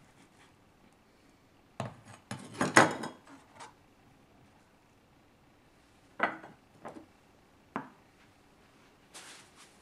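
A kitchen knife put down with a clatter on a stone countertop, then a ceramic bowl knocked three times as it is set on a plastic cutting board, and a short rustle near the end.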